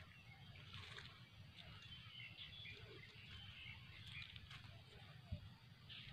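Faint birds chirping in short, scattered calls over a low rumble of handling noise, with one sharp click about five seconds in.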